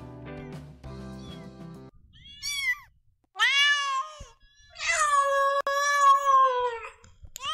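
Background music for the first two seconds, then a domestic cat meowing: two short meows, then one long drawn-out meow of about two seconds, and another starting at the very end.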